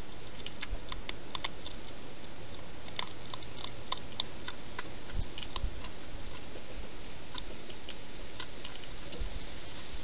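Wild hedgehog chewing dry food at a dish: irregular small crunching clicks, several a second at first and thinning out in the second half, over a steady background hiss.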